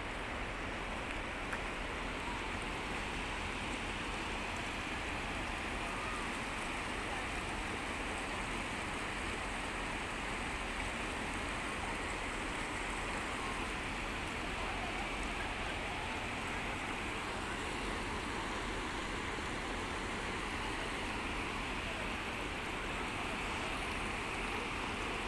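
Shallow, rocky mountain river rushing over and between boulders: a steady rush of flowing water.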